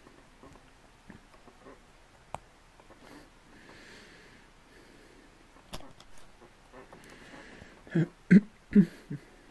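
Small LEGO bricks being handled, with a few faint sharp clicks as pieces are picked and fitted. Near the end come four loud, short noises close to the microphone.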